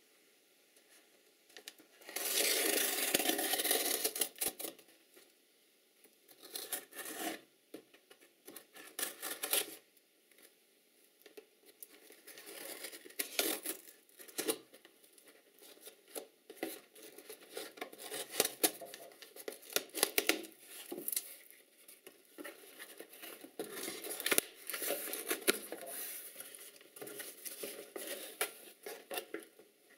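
Scissors cutting and slitting the packing tape on a cardboard box, with tape tearing and cardboard flaps scraping in irregular bursts. The loudest is a long ripping stretch about two seconds in. Paper packing rustles near the end.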